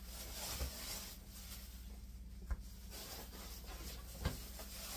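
Plastic shopping bag rustling as clothes are shaken out and handled, with a few short knocks, the sharpest about halfway through and near the end.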